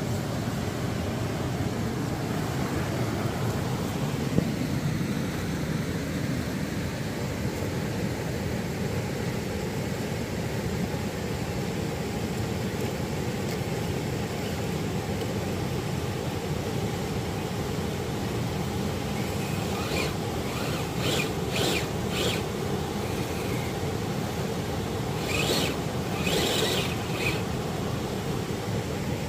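River rapids rushing steadily. A few short high-pitched sounds come in two clusters in the second half.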